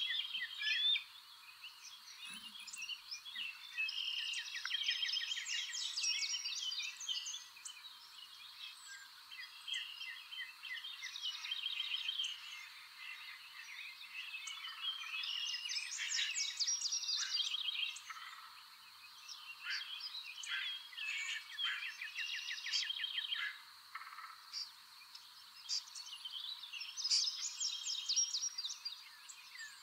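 Small birds singing and calling over one another in overlapping phrases of chirps and rapid trills, with a faint steady high-pitched hum underneath.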